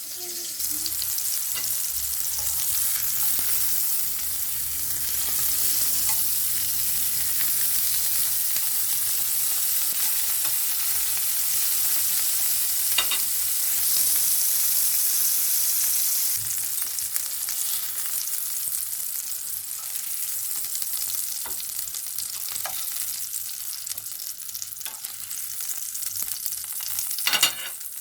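Food sizzling as it fries in a pan, a steady hiss that eases a little after halfway, with a few short knocks of a utensil or pan, the loudest near the end.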